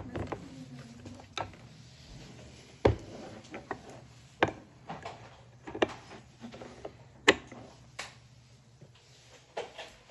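A dental articulator with mounted stone models being handled: scattered sharp clicks and knocks, roughly one every second or so, the loudest about three and seven seconds in.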